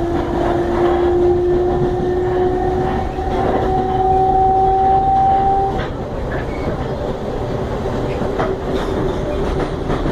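The traction motors of CPTM electric multiple unit 4425 whine in two tones that rise slowly in pitch over the rumble of the train in motion. The whine cuts off about six seconds in, and the wheels then click over rail joints near the end.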